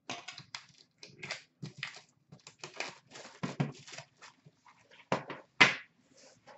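Plastic wrapping crinkling and rustling as it is pulled off a metal Upper Deck hockey card tin, in short irregular bursts, with two louder rips about five seconds in.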